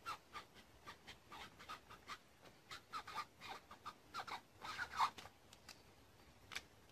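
Sheets of paper being handled: faint, irregular rustles and light taps, growing busier about two-thirds of the way through.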